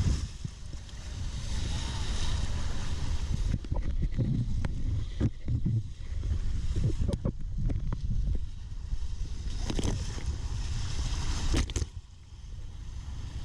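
Wind buffeting the microphone over rushing river water, with a few sharp knocks and splashes from the raft.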